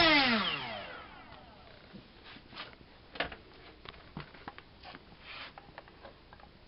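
Brushless outrunner drone-racing motor (QAV2206-1900KV) turning a 6x4 propeller, spinning down after the throttle is cut: its whine falls in pitch and fades over about a second. A few light clicks and taps follow.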